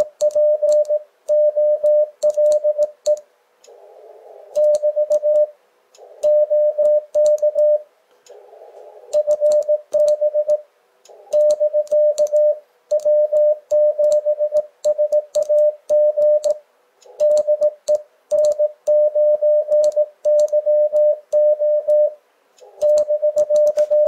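Morse code (CW) on an Icom IC-7300 transceiver: a steady, mid-pitched tone keyed rapidly into dots and dashes, with light clicks from a brass Morse paddle. In several stretches receiver hiss comes up under the tone, as a station's CW comes in over the air during the exchange.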